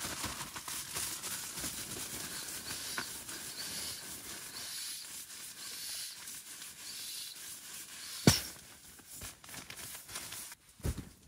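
Nylon pump sack rustling and pushing air into a Sea to Summit inflatable sleeping pad in repeated soft puffs, with one sharp knock about eight seconds in.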